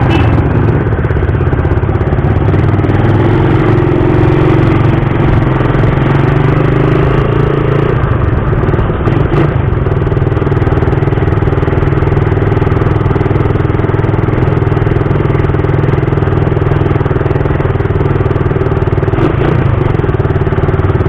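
Suzuki Raider 150 motorcycle's single-cylinder four-stroke engine running steadily while being ridden, with a faint pitch shift around the middle as the throttle changes.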